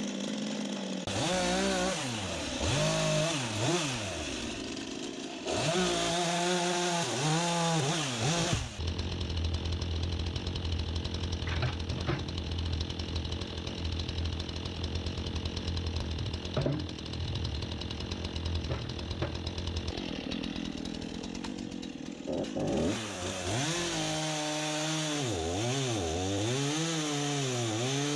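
Small engine running for the whole stretch. Its pitch repeatedly sags and recovers, as under changing load, for the first third and again near the end, and in between it runs at a steadier speed with a low drone.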